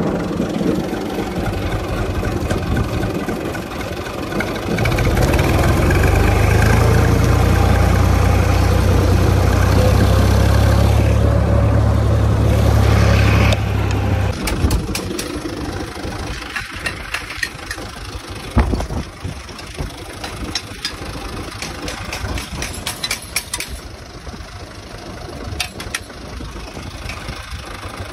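UTB 445 tractor's diesel engine running. A deep steady rumble fills the first half, then the sound changes abruptly about halfway through to a lighter running sound broken by many short clicks and knocks.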